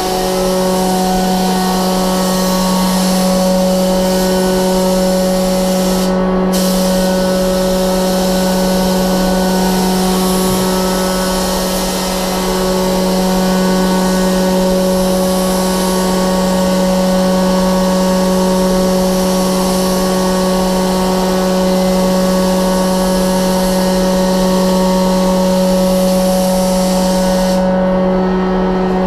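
Hiss of compressed air from an automotive paint spray gun, over a steady hum of running machinery. The hiss cuts out briefly about six seconds in and again near the end, as the trigger is let go.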